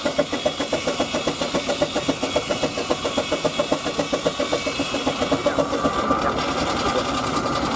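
Steam traction engine running and driving a saw bench through a long flat belt, with an even beat of about four to five a second. About five and a half seconds in, the beat softens and a steadier, higher whine takes over.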